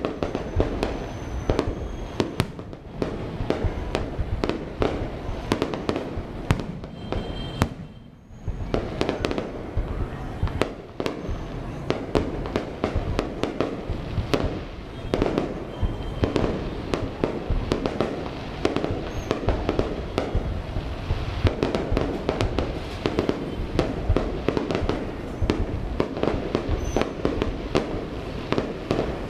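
Fireworks display at full intensity: a dense run of bangs and crackling bursts, with a brief lull about eight seconds in.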